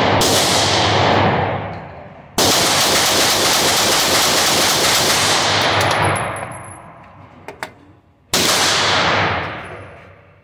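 Glock 17 9 mm pistol shots in an indoor shooting range, each a sharp crack followed by a long echoing decay: one near the start, another about two seconds later, and a third after a pause of about six seconds.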